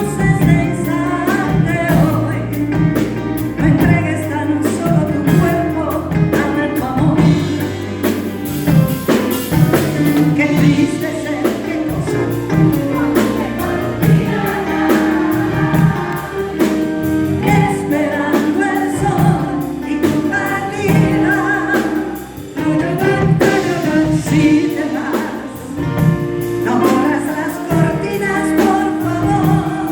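Live band music with singing: a ballad played with bass and a steady drum beat.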